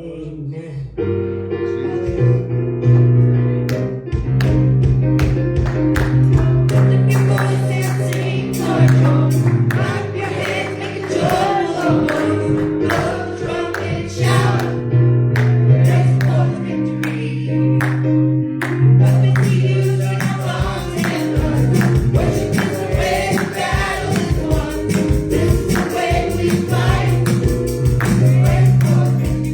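Live gospel music: held bass notes and chords under steady percussion, with the low beat growing fuller about twenty seconds in.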